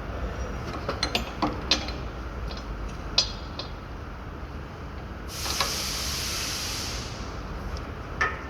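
Metal hand tools clinking and knocking on truck parts as an air distributor valve is refitted. A little past halfway there is a steady hiss lasting about a second and a half.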